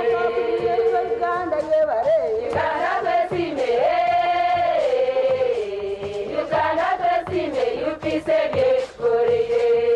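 A women's choir singing together, the melody holding long notes, over a steady low drum beat.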